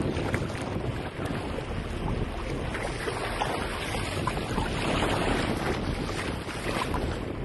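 Wind buffeting the microphone over sea water splashing and rushing along a boat's hull, a steady rush with small splashes throughout.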